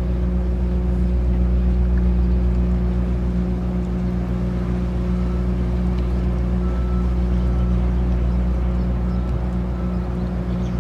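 A boat engine running steadily: a constant low drone with a steady hum above it.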